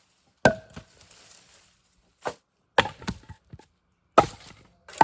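A series of sharp wooden knocks and cracks, about six irregular strikes with short gaps between them; the loudest come near the start and about four seconds in, the first with a brief ring after it.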